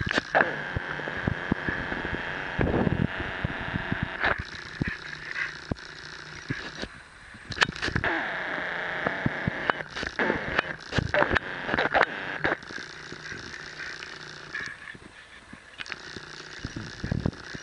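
Two bulldogs playing together over a ball on grass: irregular scuffling, knocks and clicks over a steady hiss.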